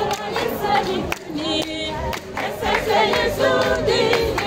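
Large mixed choir of women and men singing a church song together as they march, with hand-clapping along.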